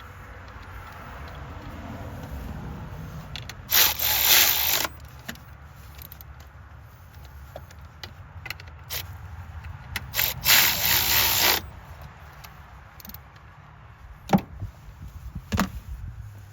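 Cordless electric ratchet running in two short bursts of about a second each, driving coil pack bolts, with a couple of sharp clicks near the end over a low steady rumble.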